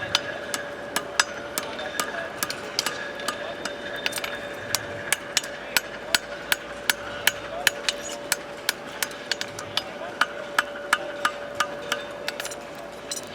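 Farriers' hammers striking horseshoes on anvils: sharp metallic strikes at an uneven pace, about three a second, from more than one smith, over a steady faint hum.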